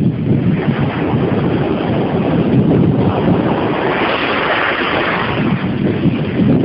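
Waves breaking on a sandy beach, with wind buffeting the microphone in a steady low rumble. Around the middle, a wave's wash swells into a brighter hiss as it runs up the sand.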